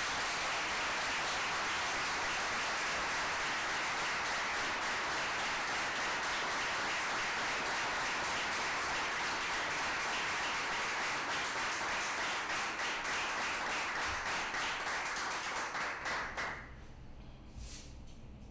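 Audience applauding. The clapping thins into separate claps near the end and stops after about sixteen seconds.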